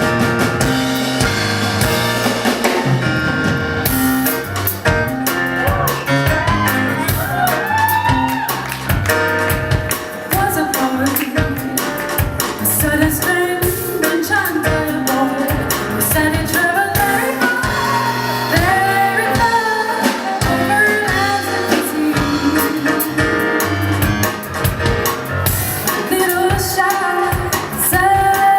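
Jazz song with a woman singing over piano and drums; the voice comes in about four seconds in.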